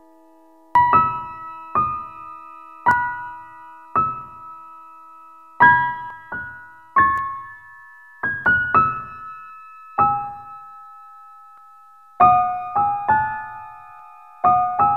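Background music: a slow solo piano melody of single struck notes, each ringing out and fading, with a short pause about two-thirds of the way through.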